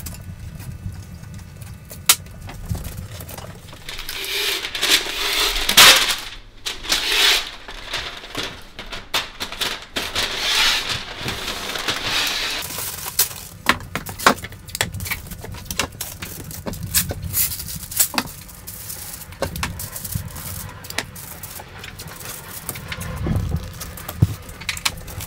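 Brown masking paper rustling and crinkling as it is handled, folded and pressed into place, loudest in the first half, with many short clicks and taps from taping it down.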